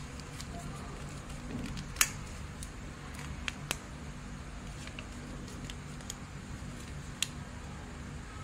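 Sheet of origami paper being folded and creased by hand: scattered sharp crinkles and clicks, the loudest about two seconds in, over a steady low hum.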